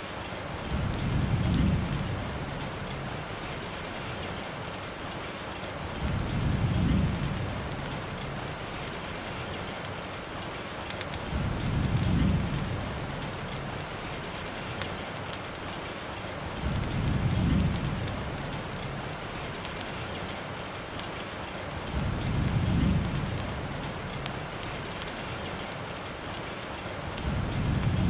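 Steady rain hiss, with a soft low rumble that swells and fades at even intervals, about every five seconds.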